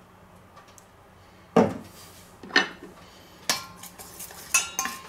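A glass oil bottle set down on a wooden board with a knock, then a metal spoon clinking against a small stainless steel bowl several times, each strike ringing on, as olive oil and spice are stirred into a marinade.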